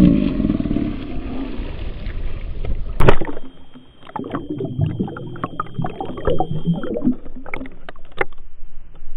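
Water and knocking noises around a small fishing boat. About three seconds in there is a sharp loud knock. After it the sound turns muffled and is full of small knocks, with a thin steady whine for a few seconds.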